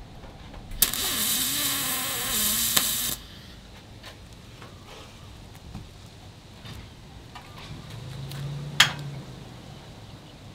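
Welding arc hissing and crackling for about two and a half seconds as a tack weld is laid on the aluminum flatbed, starting and stopping abruptly. A sharp click follows near the end.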